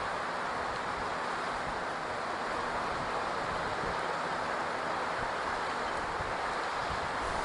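Steady, even rushing of ocean surf washing on the shore.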